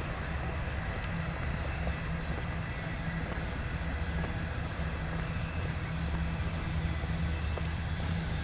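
Norfolk Southern train's diesel locomotives running, a steady low rumble from a distance.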